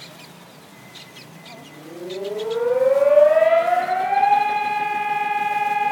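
Seismic-alert siren winding up about two seconds in. Its pitch rises for a couple of seconds, then it holds a loud, steady tone, sounding the earthquake alert.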